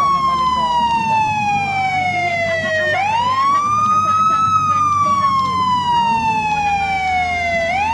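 Police siren wailing in a repeating cycle. Its pitch falls slowly for about three seconds, jumps back up quickly about three seconds in, falls again, and starts another quick rise near the end.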